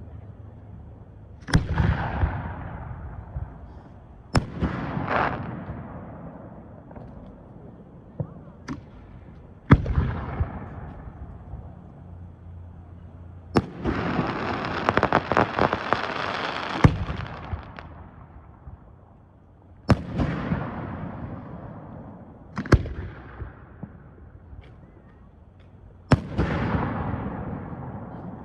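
Fireworks display: aerial shells bursting with sharp bangs every few seconds, each followed by a fading crackle. About halfway through, a dense crackling burst lasts about three seconds.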